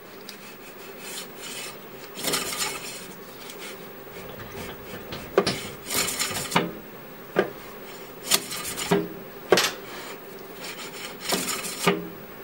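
Vespa front brake disc turning against the caliper, the pads scraping on the disc in a series of short rasping rubs, each under a second, with a few sharp clicks between them.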